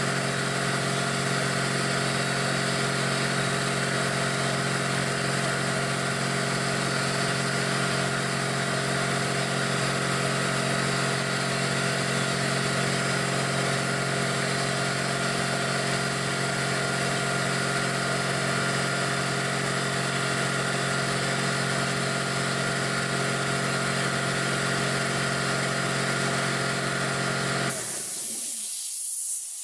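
Quincy air compressor running steadily under load as the tank pressure climbs to about 150 psi. Near the end the motor cuts off suddenly and a hiss of escaping air follows, the unloader venting as the compressor reaches cut-out pressure.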